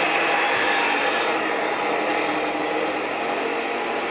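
Electric arc welding on a steel roof truss: a steady hiss.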